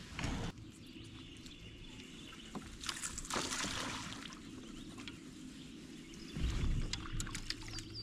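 Water splashing and sloshing around a fishing kayak, with a rush of splashing about three seconds in, a heavier low thump-and-rumble later, and a few sharp clicks near the end.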